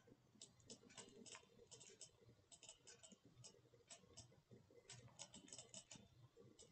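Near silence: faint room tone with soft, irregular clicks, sometimes several in quick succession.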